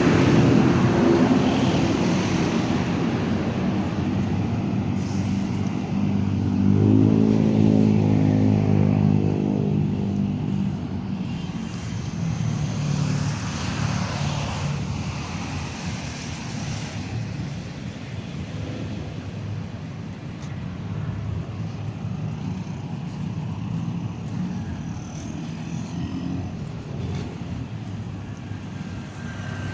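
Steady engine noise, with a pitched engine hum that swells and passes about seven seconds in, the noise slowly fading overall.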